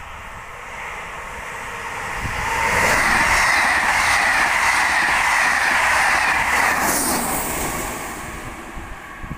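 Electric-hauled passenger train of SNCF Corail coaches passing at speed along the platform, building up, running loud for about four seconds with a regular clatter of wheels over the rail, then fading as the last coach goes by.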